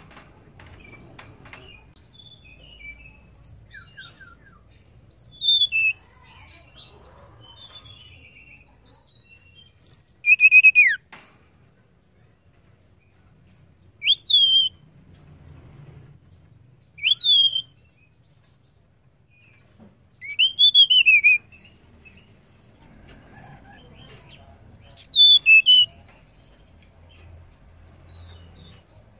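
Blue flycatcher (tledekan) calling: six loud short phrases of quick sliding whistled notes, a few seconds apart, with soft chirps in between.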